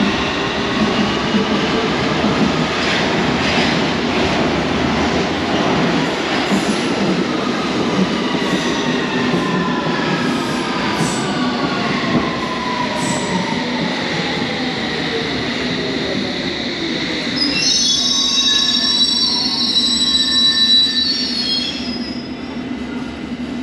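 London Underground train slowing into the platform: its motor whine falls steadily in pitch over a rumble, then high brake and wheel squeal rings out for a few seconds near the end as it comes to a stop.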